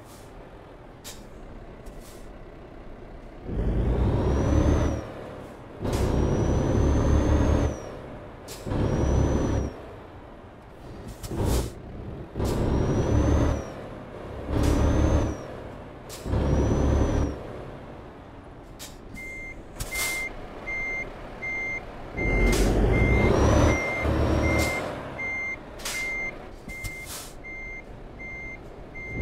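Heavy truck manoeuvring: the diesel engine revs up in repeated short bursts of one to two seconds, with brief sharp air hisses in between. About two-thirds of the way through, a reversing alarm starts beeping evenly, roughly one and a half beeps a second.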